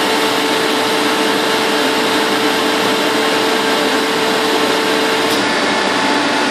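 Rotary screw air compressor running: a loud, steady rushing noise with several steady hums through it. One of the hums drops out about five seconds in.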